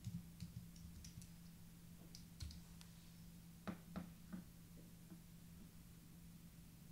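Faint, scattered keystrokes on a computer keyboard, typing out a search query, over a low steady hum.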